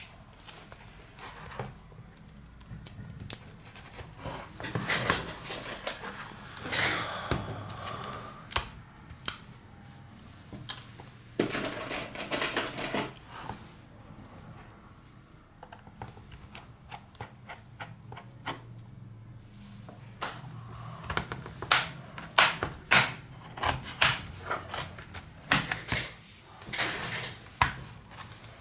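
Plastic tablet case being handled on a hard table: scattered clicks, taps and light scrapes, with a quicker run of clicks in the last few seconds as a plastic opening pick is worked along the edge of the back cover.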